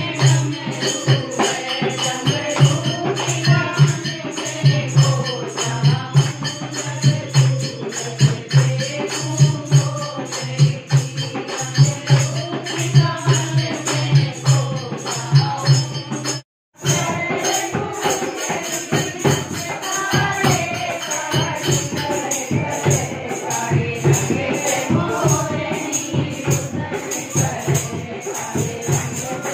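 Music for dancing: singing voices over jingling percussion and a steady rhythmic beat. It breaks off for a moment about two-thirds of the way through, then carries on.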